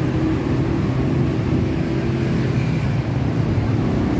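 Road traffic: a steady hum of vehicle engines running close by.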